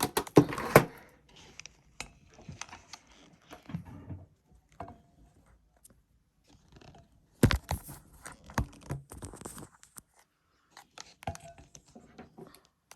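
An under-desk pull-out drawer being handled and slid: scattered clunks, knocks and rattles, with the loudest knocks in the first second and again about seven and a half seconds in.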